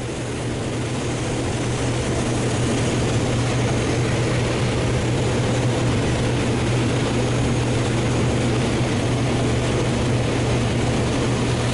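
Combine harvester running steadily under load in the field: a constant low engine hum under a broad mechanical rush from the crop going through. It builds up over the first couple of seconds, then holds level.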